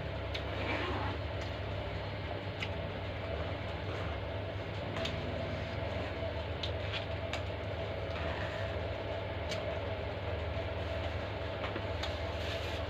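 Eating sounds: scattered sharp mouth clicks from chewing, over a steady low hum.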